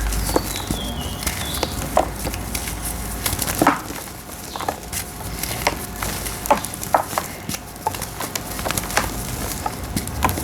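Dried red brick-dirt shapes crumbling and breaking apart, with irregular crisp crackles and snaps a few times a second.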